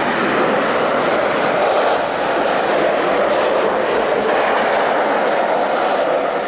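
Peugeot 208 electric ice-racing car drifting through a turn on the snowy ice track: a steady rushing noise of tyres scrabbling on ice and snow spraying.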